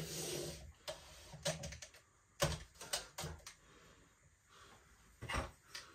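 A few scattered light clicks and taps from a tape measure being handled and pressed against a wall.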